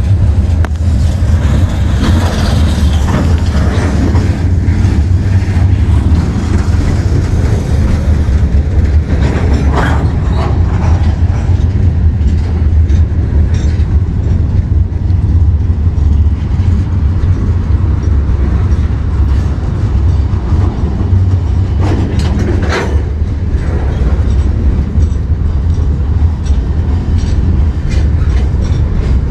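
Freight cars rolling past at close range: a steady, heavy low rumble of steel wheels on the rails, with clicking and clanking from the wheels and couplers, and a brief louder, sharper clank about two-thirds of the way through.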